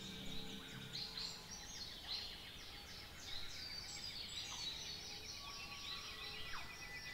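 Many wild birds calling over one another: repeated short falling chirps and whistles, with a fast, even trill joining in for the last couple of seconds.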